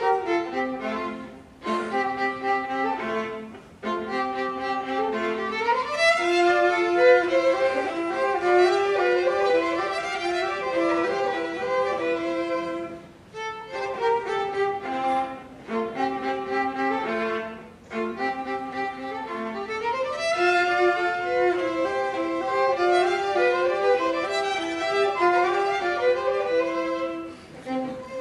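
Two violins playing a duet: a melody in phrases separated by short breaks, with a quick rising run about six seconds in and again about twenty seconds in, where the passage repeats.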